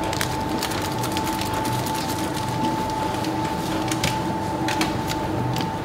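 Bakery machinery running: a steady hum with a constant high tone, a regular low pulsing and scattered sharp clicks.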